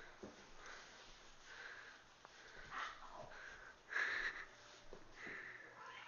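Cat hissing in a fight, a string of short breathy bursts at uneven spacing, the loudest about four seconds in.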